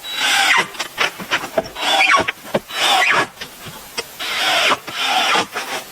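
Hand saw cutting through wood in rhythmic back-and-forth strokes, about one stroke a second.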